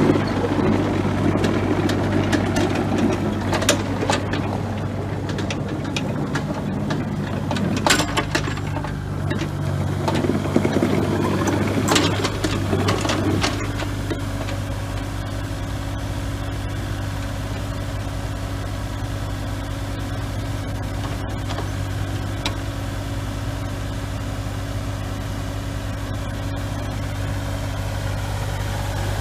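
Kubota KX040-4 mini excavator's diesel engine running. In the first half there is extra noise and a few sharp knocks; about halfway through it settles to a steady idle.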